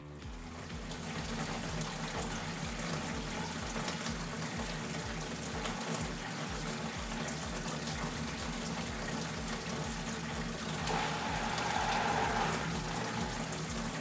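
Water running steadily from a laundry-sink faucet into the tub and draining away, a continuous rush that swells a little about eleven seconds in. The water is run to check that the sink's drain pump works after maintenance.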